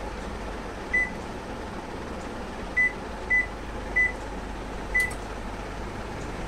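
Convection microwave oven's control panel giving five short, single-pitched beeps as its buttons are pressed, over the steady hum of the oven running.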